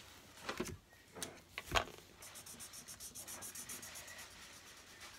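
A few light clicks and taps of markers being handled. Then, from about two seconds in, a felt-tip marker scratches on paper in fast, even back-and-forth strokes as a picture is coloured in.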